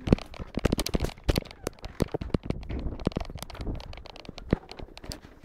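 Handling noise: a rapid, irregular run of sharp clicks, knocks and rustles as the recording phone is jostled and moved about.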